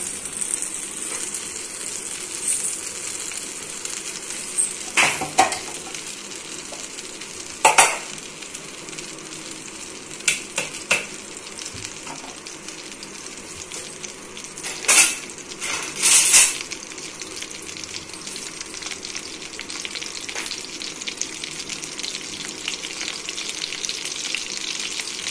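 Butter melting and sizzling in a hot kadai: a steady fine crackling fizz, with a few short, louder pops in the middle stretch.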